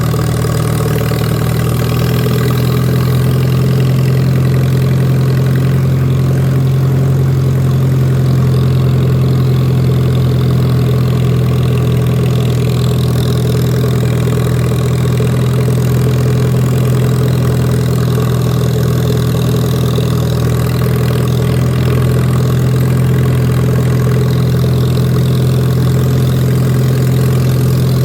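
A tractor's engine running at a steady, unchanging speed while mowing grass, a loud constant low hum.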